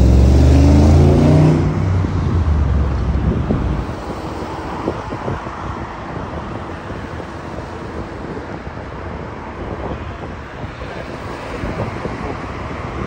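Street traffic and wind over the microphone heard while riding an electric kick scooter along a city street. It is loudest in the first couple of seconds, with a low rumble whose pitch shifts, then settles into a steadier rush with small knocks.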